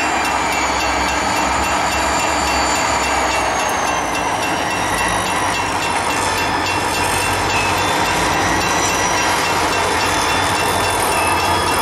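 Diesel-electric freight locomotives working hard at high throttle to drag a heavy loaded scrap train up a grade. Their engines make a loud, steady drone, and a high whine slowly drops in pitch.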